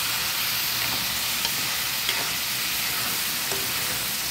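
Hot oil sizzling steadily in a frying pan as chopped tomatoes, soaked chana dal and onions are stirred through it with a spatula, with a few faint light scrapes of the spatula against the pan.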